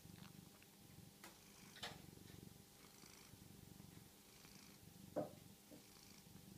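Domestic cat purring softly and steadily, with three brief faint clicks, the loudest about five seconds in.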